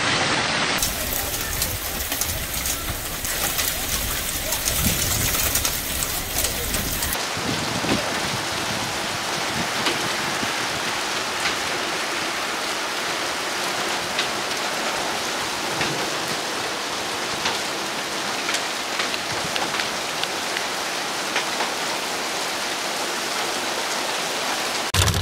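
Heavy rain mixed with hail pelting the ground and parked cars: a dense, steady hiss speckled with small ticks of impact. The sound changes abruptly about a second in and again about seven seconds in, at cuts between separate storm recordings.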